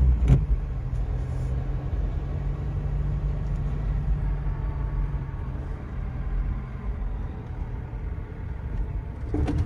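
GAZelle Next van engine running with a steady low drone as the van drives slowly, with a short click just after the start.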